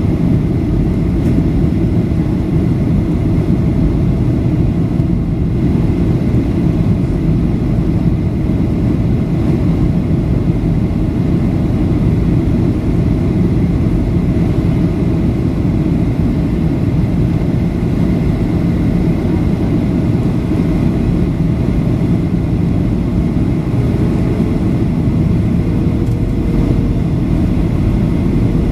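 Steady low rumble of a Boeing 737-800's cabin in descent, its CFM56-7B engines and the airflow heard from a window seat over the wing, with a faint thin whine throughout. A faint hum joins in near the end.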